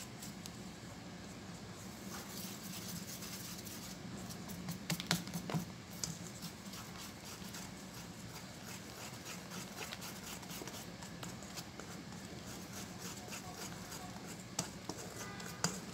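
A wire hand whisk stirs a runny egg mixture into flour in a stainless-steel bowl, making soft scraping and many small irregular clicks of the wires against the metal, with a few louder clicks about five seconds in.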